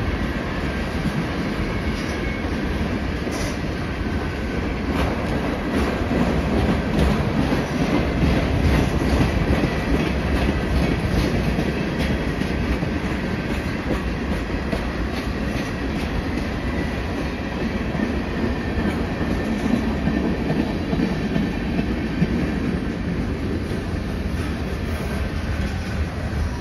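Freight train of tank cars and covered hoppers rolling past close by: a steady low rumble of steel wheels on rail, with clickety-clack as the wheels cross rail joints.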